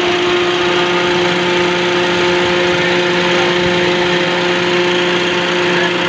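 Car engine idling under the bonnet with the belt-driven AC compressor engaged and the radiator fan running: a steady, even hum with a few constant tones over a whir.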